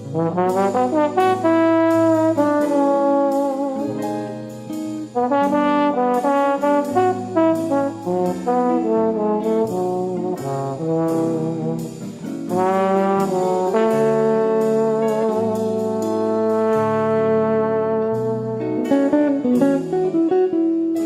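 Background music: a jazzy tune led by brass over a steady beat.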